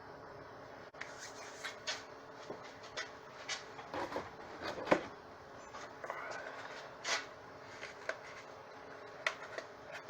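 Scattered light knocks, clicks and rubbing of workshop items being handled, with the sharpest knock about halfway through.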